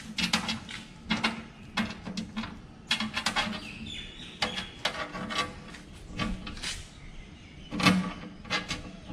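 Irregular metallic clicks, taps and clatter of a bolt and hand tool against a steel pannier box as it is bolted to a motorcycle's mounting bracket, with one louder knock near the end.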